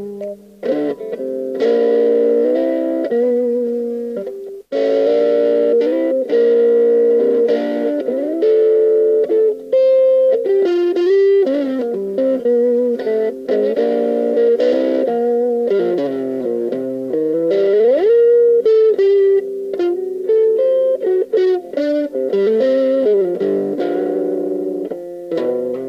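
Electric guitar playing overdriven boogie-rock riffs, chugging chords with single-note fills. About two-thirds of the way through, the pitch sinks and then slides up the neck.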